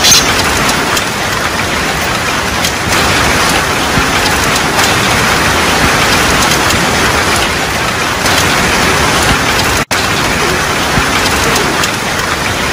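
Heavy rain pouring down steadily. It drops out for an instant nearly ten seconds in.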